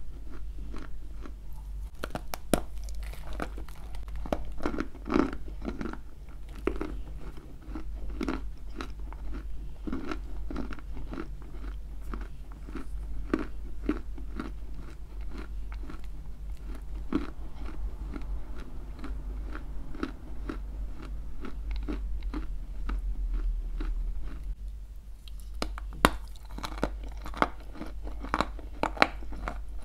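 Close-miked crunching and chewing of a hard chunk of edible clay, with many sharp cracks as pieces break off between the teeth. There is a short pause about 25 seconds in before fresh crunchy bites, all over a steady low hum.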